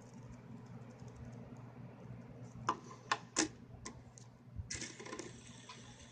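Plastic fidget spinner on a wooden tabletop: five sharp clicks and taps as it is handled, about halfway through. Then it is set spinning flat on the table, with a steady hiss.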